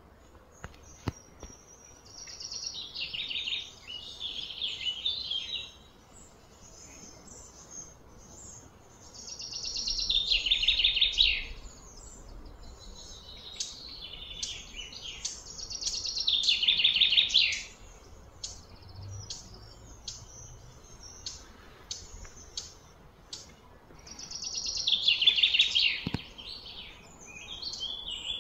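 A songbird singing high, rapidly pulsed phrases, each two to three seconds long and falling in pitch. There are four of them, several seconds apart, with softer chirps in between.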